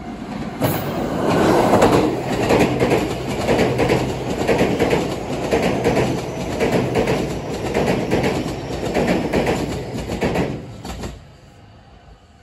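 JR West 227 series eight-car electric train passing close at speed, its wheels clattering over the rail joints in a steady rhythm. The sound cuts off suddenly near the end.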